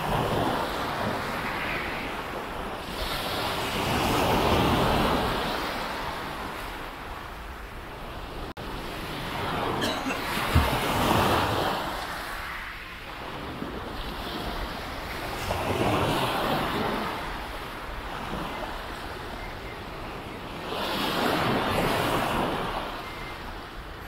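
Calm sea waves breaking and washing up a beach, the surf swelling and fading four times, about every five to six seconds, with a single short sharp knock near the middle.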